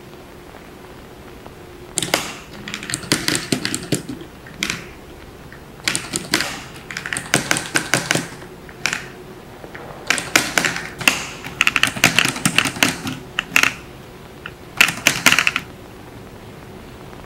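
A pencil-driven kinetic sound machine clicking and tapping in rapid, irregular clusters, like typing, separated by short pauses, over a faint steady hum. The clicking starts about two seconds in and stops shortly before the end.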